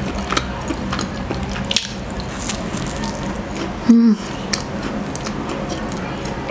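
Close-miked chewing of a flaky Porto's cheese roll pastry, full of small wet mouth clicks. A brief hummed 'mm' comes about four seconds in.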